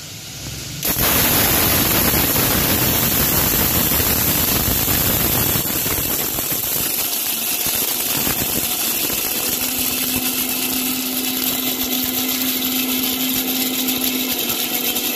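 Electric mixer grinder with a steel jar running, grinding whole wheat into coarse broken wheat. The motor starts about a second in, the sound gets lighter about halfway through, and a steady hum comes in near the end.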